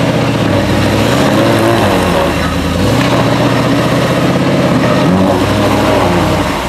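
Land Rover engine revving up and down several times under load as its mud-tyred wheels spin and churn in deep mud, the vehicle stuck and fighting for grip.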